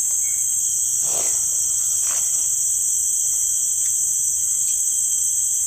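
A steady, loud, high-pitched insect chorus from the riverbank vegetation, with a couple of brief, softer swishes about one and two seconds in.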